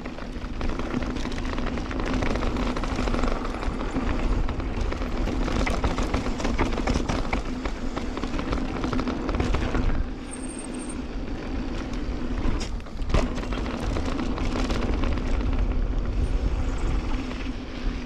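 Santa Cruz Bronson mountain bike running fast down a dry dirt trail: a continuous rush of wind and tyre noise, with frequent rattles and knocks from the bike over rough ground, easing briefly about ten seconds in.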